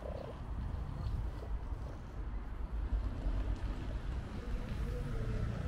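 Steady low outdoor background rumble.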